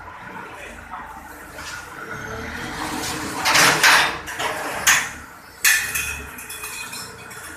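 Forklift engine running with a low pulsing rumble, with several short, harsh bursts of noise and metallic clanking around the middle, the loudest about three and a half seconds in.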